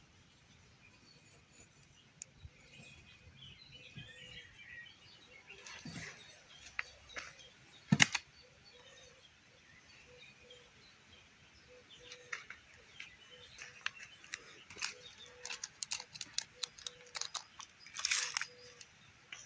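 Birds chirping, then a scattering of sharp knocks and taps, the loudest about eight seconds in, coming thick and fast in the last third. The knocks are typical of hand-tool timber work, wood and tools being struck and handled.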